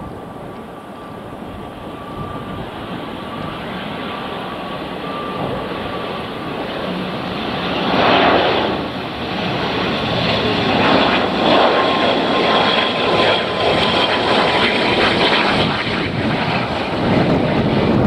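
ATR 72-500 airliner's two Pratt & Whitney PW127 turboprop engines and propellers on final approach to landing, growing louder as it nears. A steady whine runs over the engine noise and sinks slightly in pitch in the later part.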